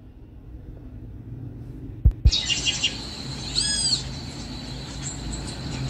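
Two dull knocks about two seconds in, then birds chirping. Quick high chirps come first, then an arched call twice over a faint low hum.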